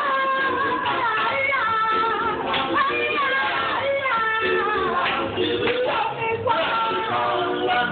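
A vocal group of men singing together in harmony, accompanied by an upright double bass.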